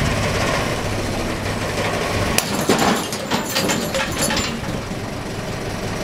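Fischer FBN II 8/30 expansion anchor bolt tearing out of rock under a tensile pull at about 1920 kg. A steady low engine hum runs until about two and a half seconds in, when a sharp crack marks the bolt letting go and the hum drops away, followed by a second or two of clattering and rattling as the freed hardware springs loose.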